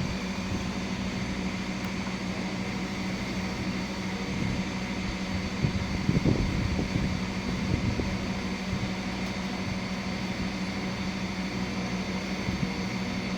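Hot air rework station blowing steadily while heating the solder joints of a VGA port on a circuit board, with a few faint knocks about six seconds in.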